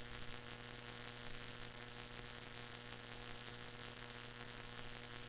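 Steady electrical mains hum, a low buzz with a few steady higher tones, under a faint even hiss.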